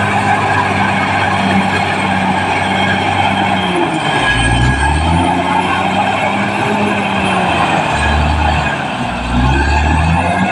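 Caterpillar D6R crawler bulldozer's diesel engine running hard. About four seconds in, its pitch sags and recovers twice as the engine takes load, with a faint high whine falling and rising along with it.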